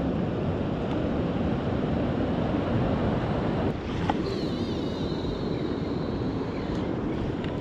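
Steady rushing wind on the microphone, mixed with waves washing against the pier below.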